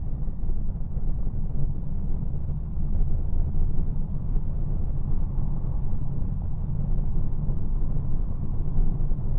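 Steady low rumble of a Cessna 185's engine at low power and its airframe during the landing rollout on the runway.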